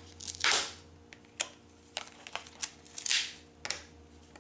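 Small thin metal cutting dies clicking down one by one onto a magnetic sheet, with two brief rustles of plastic packaging about half a second in and about three seconds in.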